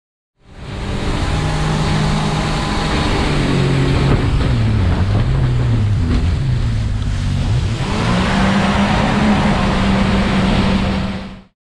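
Boat's 250 hp motor running at speed, with the rush of water and wind. The engine note wavers and dips in the middle, then holds steady and higher, and cuts off abruptly near the end.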